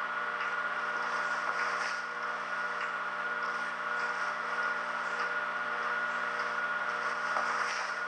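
Steady background hum and hiss with a thin high whine running through it, and a few faint soft ticks now and then.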